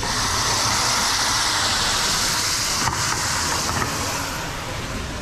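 Food sizzling in a hot pan, starting suddenly as it goes in and easing off about four and a half seconds in, over a steady low rumble.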